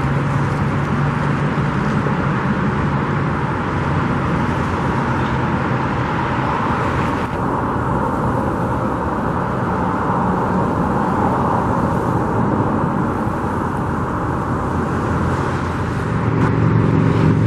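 A car driving, with steady road noise and a low engine hum that grows louder near the end.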